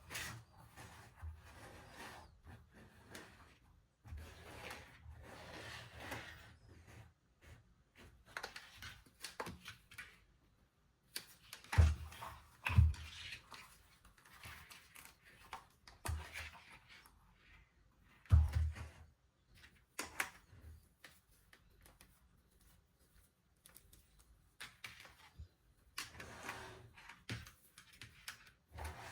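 Hands unpacking and handling a mini USB air-cooler fan and its packaging: scattered rustles and clicks, with three sharp knocks, two close together about twelve seconds in and one about eighteen seconds in.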